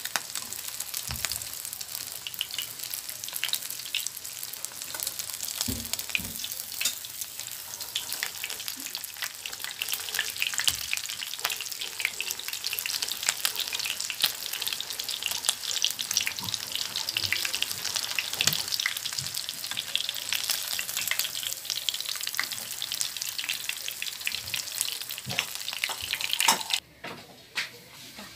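Breaded aji (horse mackerel) frying in a pan of hot oil: steady crackling and sizzling with many small pops, which stops abruptly near the end.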